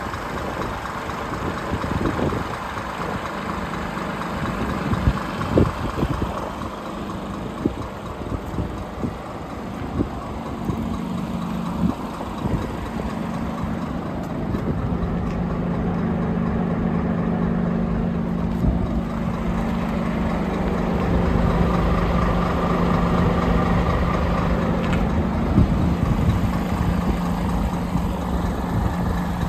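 Heavy diesel truck engine idling: a steady low rumble that settles into a firmer, even drone from about ten seconds in, with a few light knocks.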